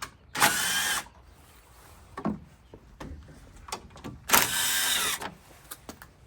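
Cordless drill-driver with a 7 mm socket spinning in two short whirring runs, about four seconds apart, backing out the headlamp housing's fasteners. Small clicks and knocks of the socket and tool sound between the runs.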